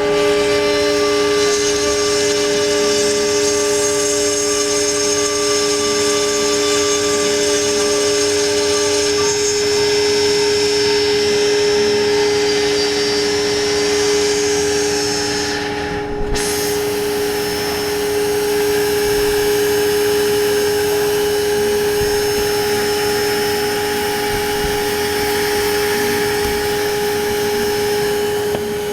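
CNC router spindle running at a steady high whine while the bit cuts acrylic sheet, with a rough cutting noise over the tone and a brief break in the hiss about sixteen seconds in.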